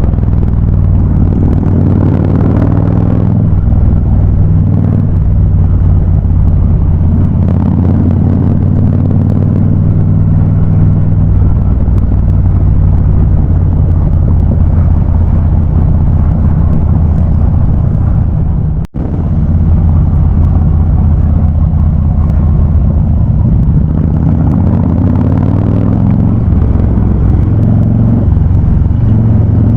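Harley-Davidson Ultra Classic V-twin running through a Vance & Hines High Output exhaust on the road, a steady low exhaust note that rises and falls with the throttle. The sound cuts out for a split second about two-thirds of the way through.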